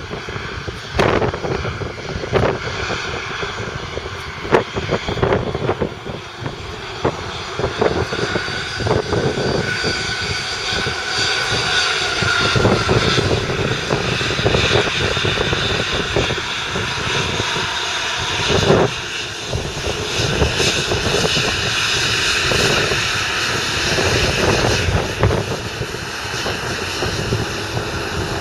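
Jet engines of a Boeing 737-700 airliner, CFM56 turbofans, running during its landing: a steady roar with whining high tones, broken by frequent short knocks.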